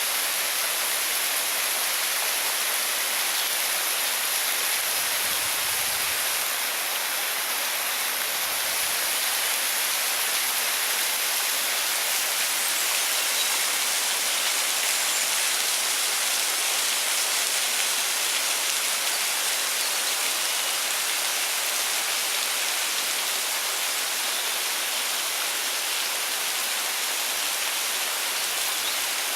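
Waterfall, its falling water rushing in a steady, even hiss.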